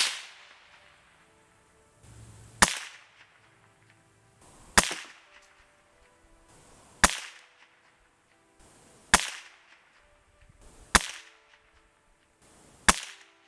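Crosman F4 .177 Nitro Piston break-barrel air rifle fired seven times, about two seconds apart, each shot a sharp crack with a brief ring after it. The shots are light 5.1-grain alloy pellets leaving at about 1,100 feet per second.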